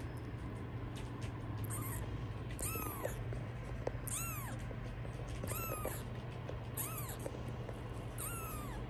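Newborn British Longhair kitten mewing: about six thin, high mews, each rising then falling in pitch, about one and a half seconds apart.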